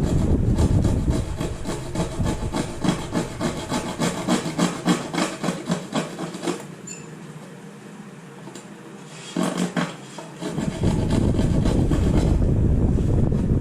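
Repeated scraping strokes, about three a second, that stop about six and a half seconds in. After a short burst near ten seconds, a loud, even scraping noise runs from about eleven seconds.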